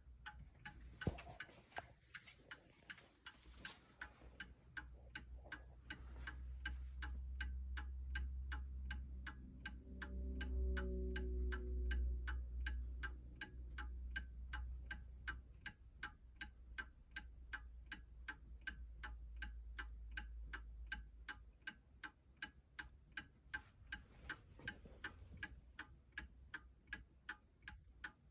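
Antique Seth Thomas five-bell Sonora chime clock ticking steadily, even regular ticks of its escapement. A low rumble underneath swells in the middle and fades away again.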